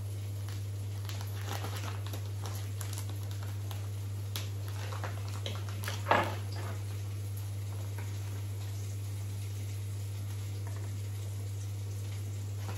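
Light rustles and clicks as a paper coffee bag is handled and opened, with one louder rustle about six seconds in, over a steady low hum.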